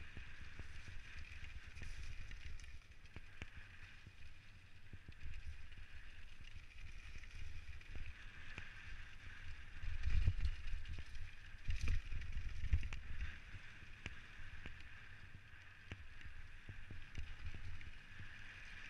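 Specialized Stumpjumper mountain bike descending a rough, wet dirt and gravel trail at speed: tyres rolling and crunching over the ground, with a steady low rumble and many small rattles and knocks as the bike bounces. A run of heavier thumps about halfway through marks the roughest ground.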